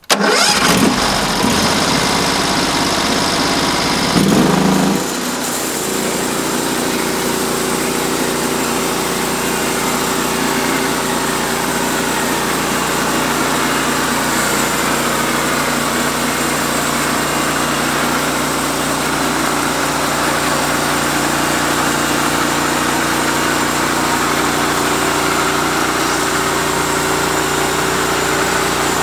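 Sawmill engine comes in abruptly, shifts in pitch about four seconds in, then runs steadily at a constant pitch.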